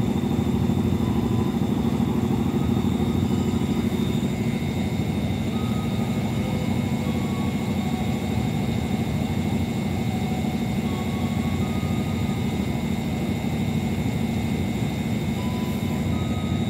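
Steady low mechanical hum of trains idling at a station platform, engines and onboard machinery running without moving off.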